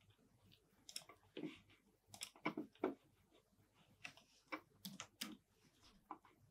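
Faint, irregular clicking of a computer mouse being clicked and scrolled, a dozen or so short clicks.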